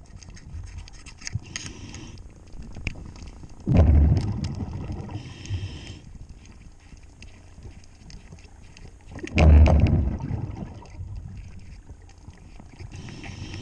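A scuba diver breathing through a regulator underwater: two exhalations about five and a half seconds apart, each a loud gush of bubbles with a low rumble, and a hiss of inhalation between them. Faint clicks and scrapes sound between the breaths.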